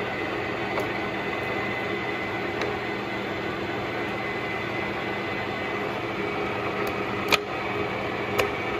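Clausing Colchester Mastiff 1400 gear-head engine lathe running with its power feed engaged: a steady mechanical hum with a faint high whine, and a sharp click about seven seconds in and another near the end.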